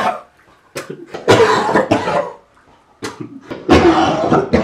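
A young man gagging, retching and coughing while trying to swallow a locust, in two long rough bouts about a second in and about four seconds in, with saliva drooling from his mouth.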